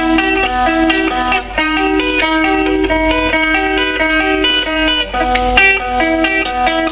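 Electric guitar playing a quick single-note melodic line, with a new note picked several times a second.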